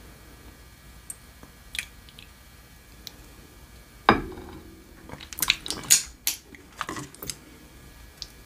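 A ceramic bowl set down with a single sharp knock about four seconds in, followed by a quick run of clicks and clinks as a wooden spoon knocks against the bowl.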